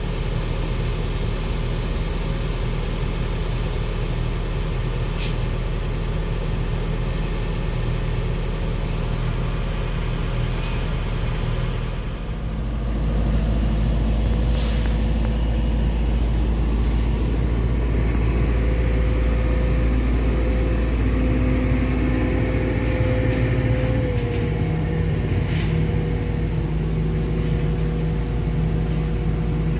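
Sumitomo SH210-6 excavator's diesel engine running steadily, becoming louder and deeper about twelve seconds in. A few light clicks sound over it.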